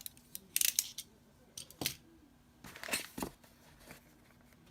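Irregular rustling and clicking of objects being handled, in several short bursts, the loudest about half a second in and near three seconds.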